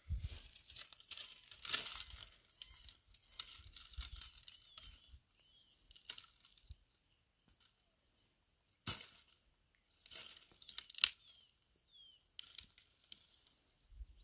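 Dry branches and twigs rustling and scraping as they are handled and dragged over dry grass, with a few sharp snaps of dry wood breaking, the loudest about nine and eleven seconds in. A short lull comes about two-thirds of the way through.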